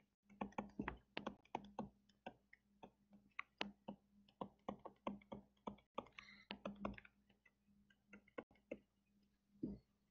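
Faint, irregular clicks and taps of a stylus on a tablet screen during handwriting, several a second, with a short scratchy stroke about six seconds in, over a faint steady hum.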